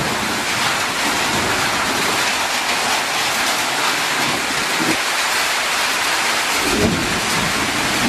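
Steady heavy rain, an even hiss of many drops, with a low rumble coming in near the end.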